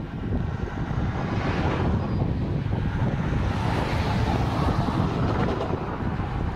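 Freight train's tank cars and hoppers rolling along the rails, a steady low rumble, with wind buffeting the microphone.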